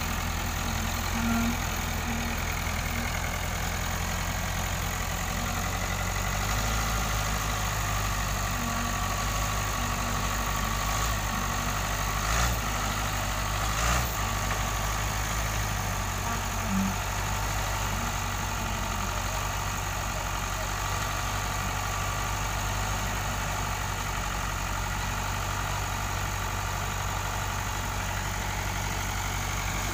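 Heavy diesel engine idling steadily, with two brief knocks near the middle.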